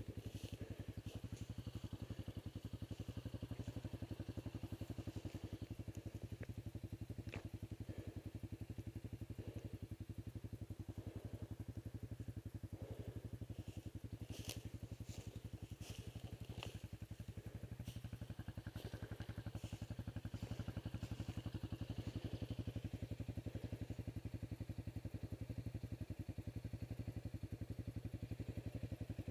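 Vehicle engine running steadily at a constant speed, with a few faint clicks around the middle.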